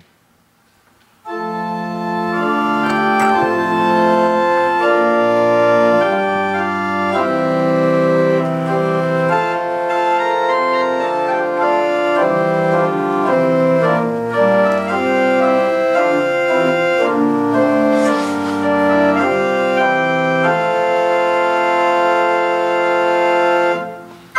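Organ playing the introduction to a sung psalm: slow held chords that change every second or so. It starts about a second in and fades out just before the end.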